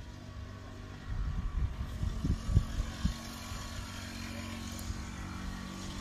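A distant engine drones steadily, with bursts of low rumble in the first half.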